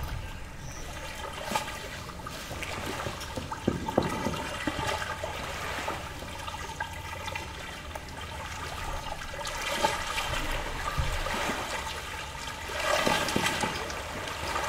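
Small lake waves lapping and splashing against the muddy shore, with a few sharp splashes; the wash swells twice in the second half.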